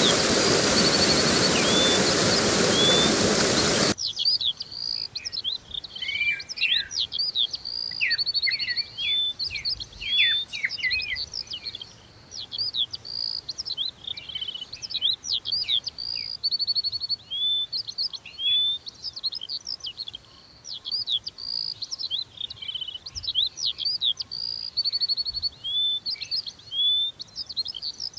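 Rushing water with birds calling over it, cutting off abruptly about four seconds in to a dense chorus of many songbirds, high-pitched chirps, trills and whistles overlapping continuously.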